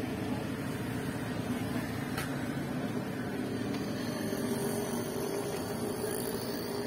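Steady rushing noise of a stall's burner under a large pot of steaming, boiling water.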